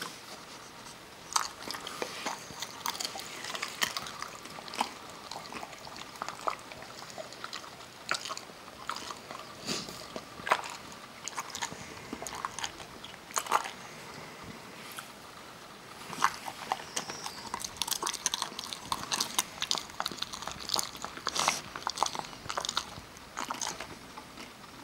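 A Kerry beagle crunching and chewing almonds: irregular sharp cracks in clusters with short pauses between, busiest in the second half.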